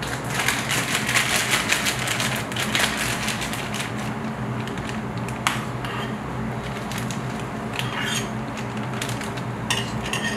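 Plastic piping bag crinkling and crackling as it is handled, densest in the first few seconds and then in scattered crackles, over a steady low hum of kitchen machinery.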